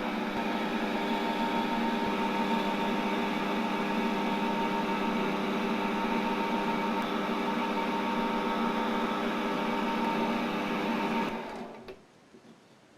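A steady machine hum at one fixed pitch, which stops about eleven seconds in and dies away over a moment.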